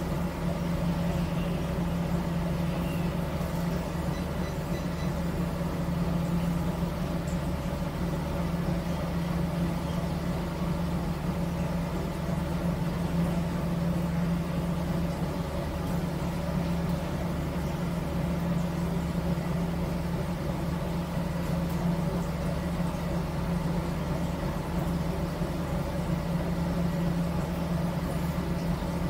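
Car ferry's MWM marine diesel engine running steadily, a constant low hum heard inside the wheelhouse.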